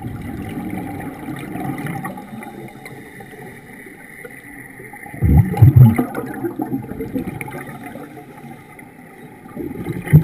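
Underwater sound on a scuba dive: a scuba regulator's exhaled bubbles rumble out in a loud burst about five seconds in and again near the end, over a faint steady hum and the low wash of the water.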